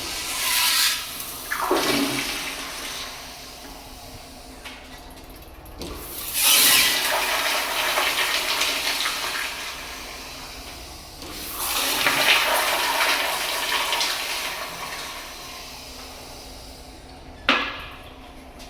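Restroom fixtures flushing three times in turn, each a loud rush of water lasting a few seconds, then a short sharp burst of water near the end.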